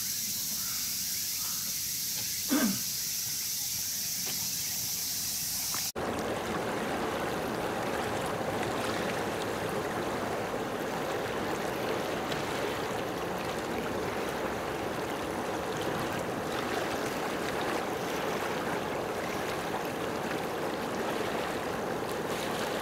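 Steady rush of running water, beginning abruptly about six seconds in. Before it comes outdoor ambience with a steady high hiss and one short, falling call about two and a half seconds in.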